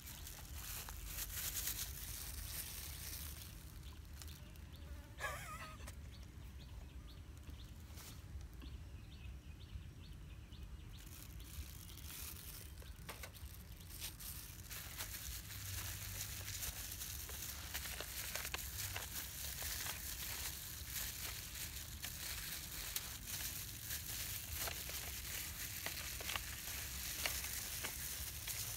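Insect buzzing, with one buzz sweeping up and down in pitch about five seconds in, over light clicks and crinkles from a plastic-gloved hand handling meat in a foil tray.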